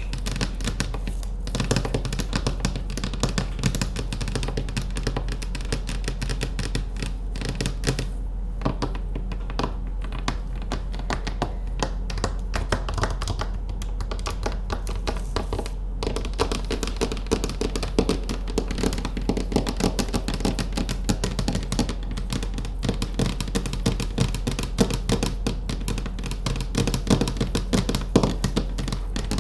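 Rapid fingernail tapping with manicured nails: a dense, continuous patter of small clicks that thins out briefly a couple of times.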